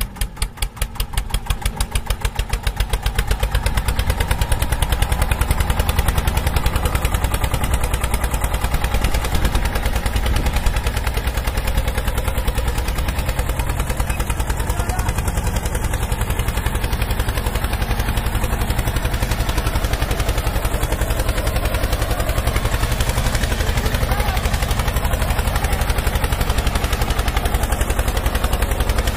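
Toy tractor running with a steady, rapid mechanical clatter: many even ticks a second over a low hum, like a small engine. It settles into a steady run after the first couple of seconds.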